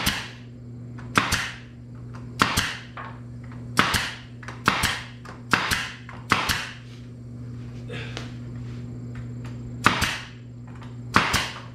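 Pneumatic nail gun firing about ten times, a sharp crack with a short hiss of air after each, nailing cedar boards in place. A steady low hum runs underneath.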